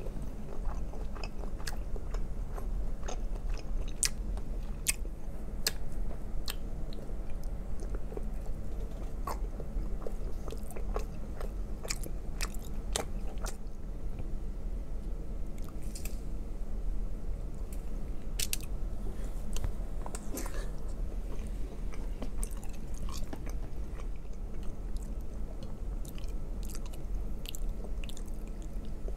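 Close-miked chewing and biting of shrimp-boil food (shrimp, sausage and eggs dipped in sauce), with many short, sharp, irregular mouth clicks.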